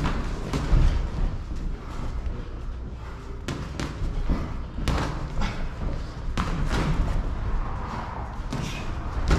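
Boxing gloves landing in sparring: irregular dull thuds and slaps, a dozen or so, spaced unevenly, some in quick pairs, over a steady low rumble.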